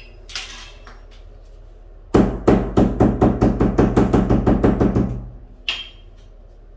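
Rapid light hammer blows, about five or six a second for some three seconds, tapping a replacement wooden moulding strip into a door frame, easing off at the end. A single ringing clank follows as the hammer is set down on the tile floor.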